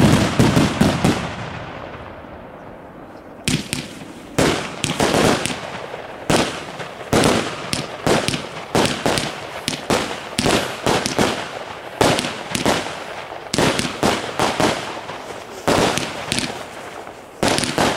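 Aerial fireworks exploding: a loud bang at the start with an echo that dies away over a few seconds. From about three and a half seconds in comes a quick run of bangs, about two a second, as burst after burst goes off overhead.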